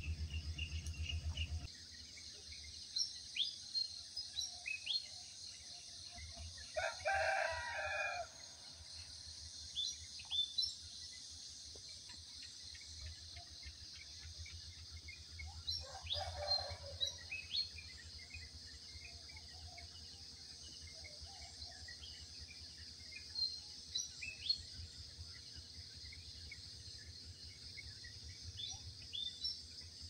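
A rooster crows twice, about seven seconds in and again around sixteen seconds, over a steady high drone of insects and scattered short bird chirps. A low hum cuts off about two seconds in.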